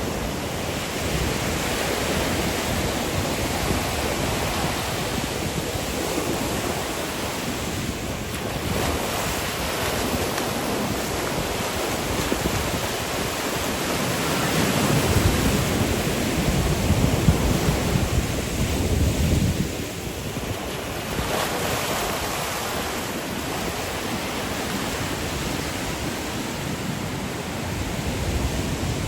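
Caribbean surf breaking and washing up the sand, a steady rush that swells and eases, louder around the middle and dipping briefly about two-thirds of the way through. Wind buffets the phone's microphone, adding a low rumble.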